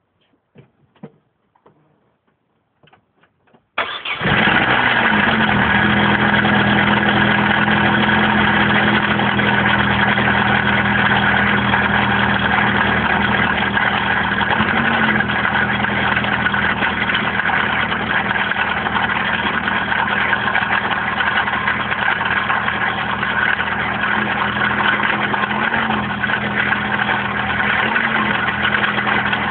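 A few faint clicks, then about four seconds in the X14XE 1.4-litre 16-valve four-cylinder petrol engine starts and runs at a steady idle, carrying a weird noise that the owner wonders may be the bottom end going.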